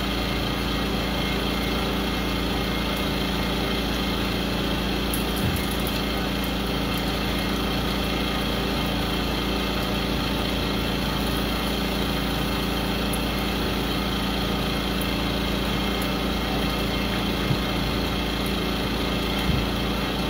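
Portable generator's small engine running steadily at a constant speed.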